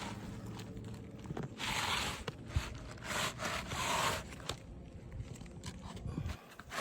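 Asphalt shingle scraping and rubbing against the surrounding shingles as a new one is slid and tucked into place under the course above, in several short scrapes with a couple of light knocks.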